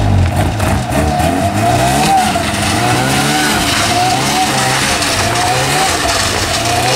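Polaris snowmobile engine running under throttle as it drives off, its pitch rising and falling with a steady wavering whine over it.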